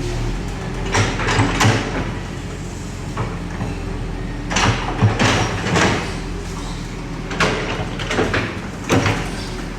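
Bulldozer working: its diesel engine runs steadily under repeated sharp metal clanks and squeals, coming one to three a second at uneven spacing.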